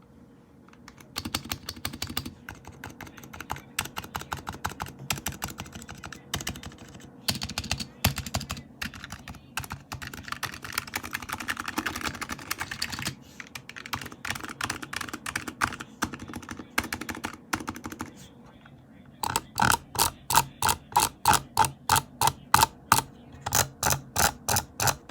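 Typing on a Razer Huntsman Mini 60% keyboard with red linear optical switches: fast, irregular keystrokes for most of the time. After a short pause, a run of louder, evenly spaced single clicks follows, about three a second.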